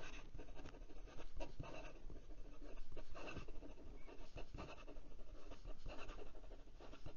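Fine fountain pen nib writing fast cursive on notebook paper: a run of quick, irregular scratching strokes as the nib glides across the page.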